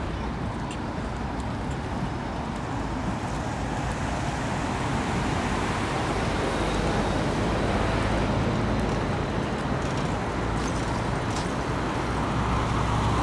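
City street traffic: a steady hum of road traffic with vehicles passing, growing a little louder about a third of the way through.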